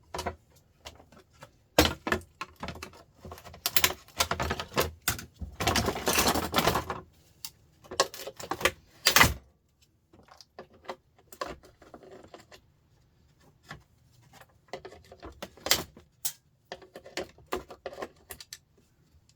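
Irregular clinks, clicks and knocks of small metal and plastic parts being handled while a sandwich maker is taken apart by hand, with a longer rattling stretch about six seconds in and a sharp knock near nine seconds.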